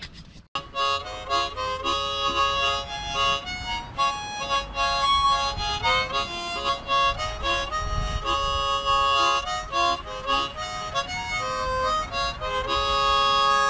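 Harmonica playing a Québécois folk tune, starting about half a second in after a brief gap.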